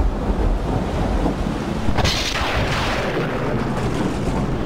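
Thunderstorm sound: a steady low rumble, with a sharp thunderclap about two seconds in that fades over the next second.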